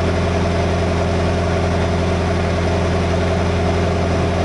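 Lorry's diesel engine idling steadily: an even, low hum.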